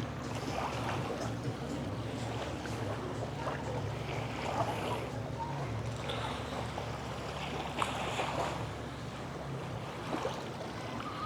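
Seaside beach ambience: a steady wash of small waves with scattered distant voices over a low, steady hum.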